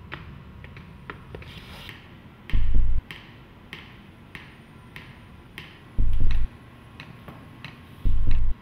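Suspense film score or sound design: a deep low boom three times, each lasting about half a second. Under it runs a steady clock-like ticking, roughly one and a half ticks a second, with a faint steady high tone.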